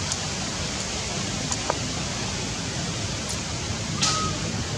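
Steady outdoor background hiss with a few faint clicks, and one brief high-pitched squeak about four seconds in.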